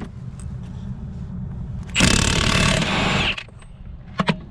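Milwaukee 1/2-inch cordless impact wrench with a 33 mm socket, hammering on a semi-truck wheel's lug nut for just over a second, starting about two seconds in, as it breaks the nut loose. A low steady rumble runs underneath.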